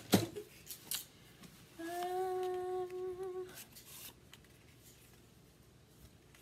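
A woman humming one steady note for about a second and a half, starting about two seconds in, amid light clicks and taps of paper being handled, with a sharp tap at the very start.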